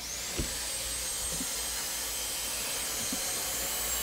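High-speed dental-style handpiece drill spinning up and running steadily as it bores into a turtle's cracked shell. It gives a thin, high whine that rises to a steady pitch as it starts, over an airy hiss, with a couple of faint knocks as the bit meets the shell.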